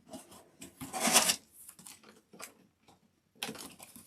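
Packaging being handled: irregular clicks and rustles, with a louder rustling burst about a second in and another cluster of clicks near the end.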